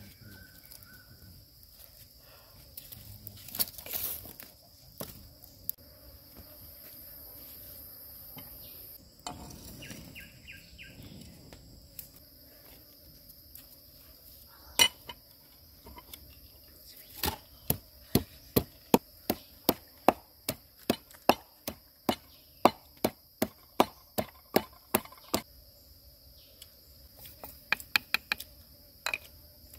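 Wooden pestle pounding chilies and garlic in a mortar: a steady run of sharp knocks, about two to three a second, over a constant high drone of insects.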